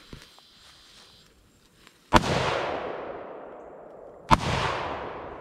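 Two shots from an AR-15-style rifle, about two seconds apart, each followed by a long echo that fades away over a couple of seconds.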